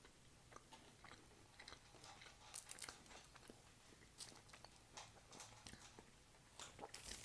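A person faintly chewing a mouthful of shawarma in lavash, with scattered small mouth clicks.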